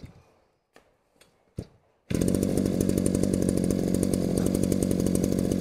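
Shindaiwa two-stroke brushcutter engine dies away at the start, with three faint clicks in the quiet. About two seconds in it is running again at full throttle, a steady, harsh, high-revving note.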